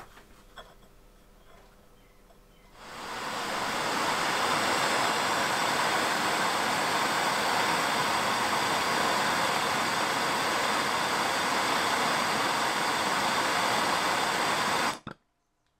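Gas blowtorch flame hissing steadily while heating a brass workpiece for silver soldering. It comes in about three seconds in and cuts off abruptly near the end.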